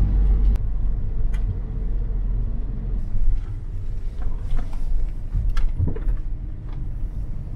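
Road noise inside a moving car's cabin: engine and tyres on a wet road make a steady low rumble, with a few faint clicks and taps.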